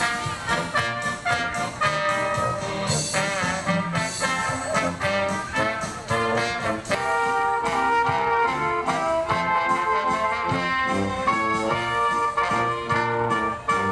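Live oompah band playing: trumpets and tuba over a drum kit, with a steady rhythmic beat.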